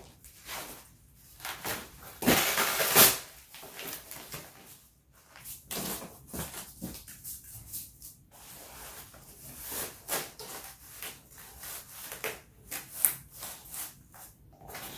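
Cut cardboard plates being handled and slid into a nylon plate carrier: rustling, scraping and light knocks, with a louder scrape lasting about a second a little after two seconds in.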